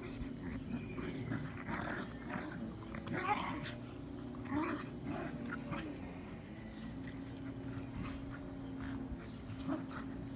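Two Irish terriers play-fighting: low, steady growling, broken by a few short, sharper cries and scuffling on the grass.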